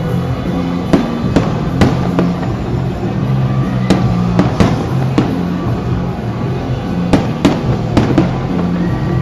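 Fireworks going off in a quick, irregular series of about a dozen sharp bangs and cracks, over loud music with a steady, repeating bass line.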